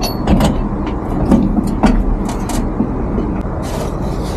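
Short knocks and clatter of pots and kitchen things being handled in a truck's side storage compartment, over a steady low rumble.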